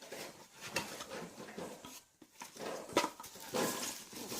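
Packaging being handled and opened by hand: irregular rustling and crinkling with sharp crackles, loudest about three seconds in.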